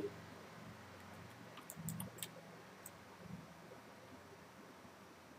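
A few faint computer mouse clicks over a low steady hum.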